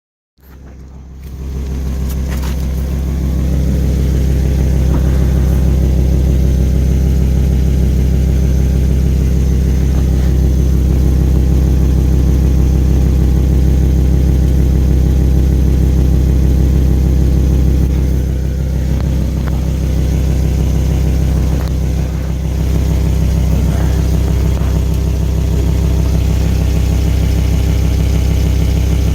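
Volvo V70 XC's turbocharged five-cylinder engine idling steadily with a fast, even exhaust pulsing, the sound of its leaking exhaust.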